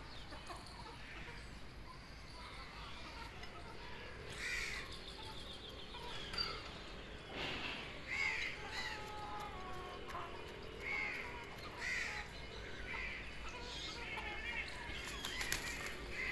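Birds giving short, harsh calls, one about every second from around four seconds in, over faint outdoor background noise.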